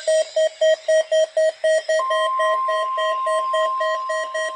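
Weather alert radios sounding their alarm, a rapid beeping at about four beeps a second. About two seconds in, the steady warning alarm tone of the NOAA Weather Radio broadcast joins under the beeps, marking the required weekly test.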